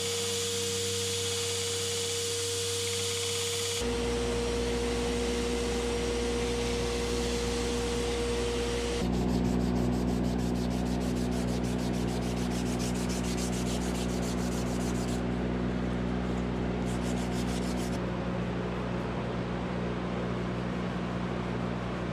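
Abrasive rubbing and sanding on a dyed, stabilized birch knife handle, first against a running belt grinder and then by hand with abrasive paper and a file, over a steady machine hum. The sound changes abruptly several times as the work shifts.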